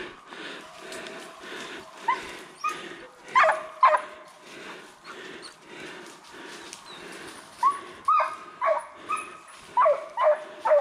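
Beagle hounds giving short, sharp barks and yelps while running a deer track. There are a few barks between about two and four seconds in, then a quicker run of barks about twice a second in the last three seconds. A steady rhythmic crunch of footsteps through leaf litter runs underneath.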